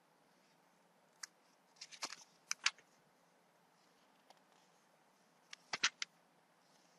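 Scattered sharp clicks and taps in a quiet room: one about a second in, a quick run of several around two to two and a half seconds, a faint one past four seconds, and another quick run of four near six seconds.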